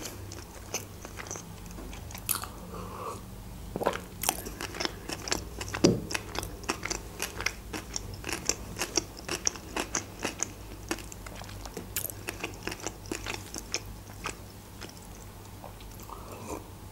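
Close-miked chewing of a mouthful of sushi roll: wet mouth clicks and smacks, many a second, over a faint steady hum, then swallowing a sip of juice near the end.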